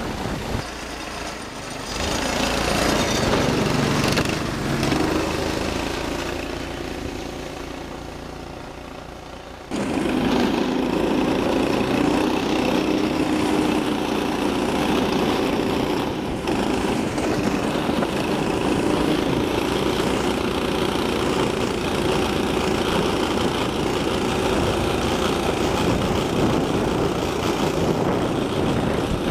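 Small single-cylinder 6.5 hp clone engine of a homemade motorized track sled running steadily under load as it pulls the sled over snow. The sound fades away over several seconds, then cuts back in at full level about ten seconds in.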